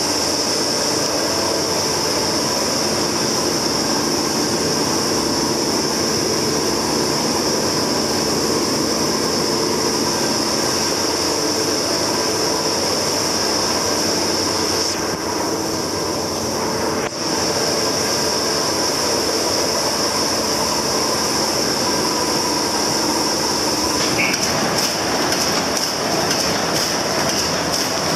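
Polygraph Brehmer 882 sheet-gathering machine running: a steady mechanical clatter with a high whine. Rapid, regular clicking of the gripper stations comes in near the end.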